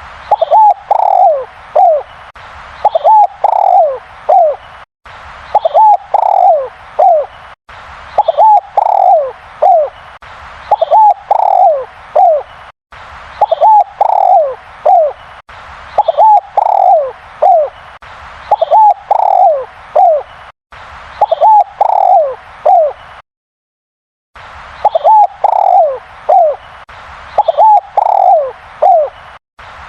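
Spotted dove cooing loudly and over and over: each phrase is a few quick notes followed by longer falling coos, repeating every two to three seconds, with a few sudden short breaks.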